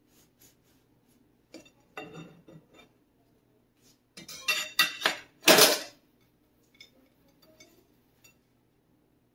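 Serrated bread knife sawing through the crust of a pumpkin loaf, then a clatter of metal knife on the ceramic plate and glass cooktop about halfway through, the loudest sound, followed by a few light taps.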